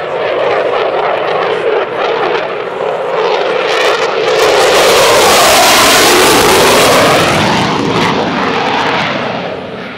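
Eurofighter Typhoon's twin EJ200 jet engines passing overhead, building to their loudest about five to seven seconds in with a sweeping tone as the jet goes by, then fading toward the end.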